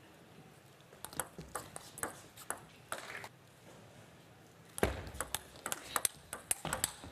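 Table tennis ball in play, sharp pocks of the celluloid ball off bats and table about two a second. After a short pause comes a louder knock about five seconds in, then a quicker run of clicks.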